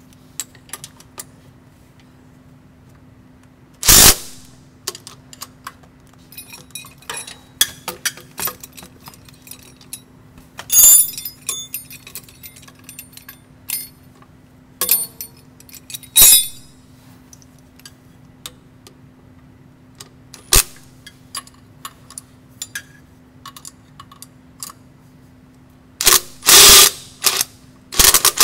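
Cordless Milwaukee impact wrench running on nuts in a few short, loud bursts, the longest near the end, while a hand wrench and ratchet clink and click on the metal between them. The bolts hold the underside of a truck APU unit.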